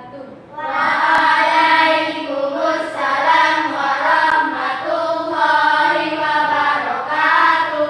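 A group of children's voices chanting together in unison, drawing out held syllables, starting about half a second in.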